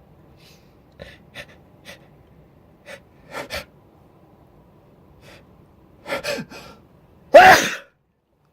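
A person's sneeze: several short sniffs, then a few sharp in-drawn gasps of the build-up, and near the end one loud uncovered sneeze with a falling voiced cry.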